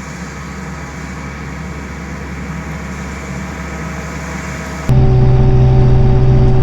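Kioti RX7320 tractor's diesel engine running steadily while driving. For the first five seconds or so it is quieter and hissier. Then the louder, steady pitched drone comes back abruptly.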